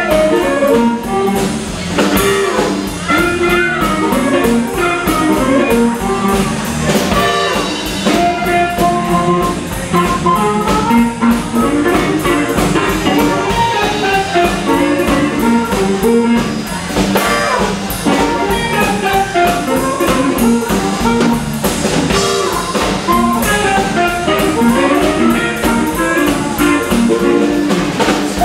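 Live blues band playing: amplified harmonica, cupped to a hand-held mic, taking the lead over electric guitar, bass guitar and drum kit.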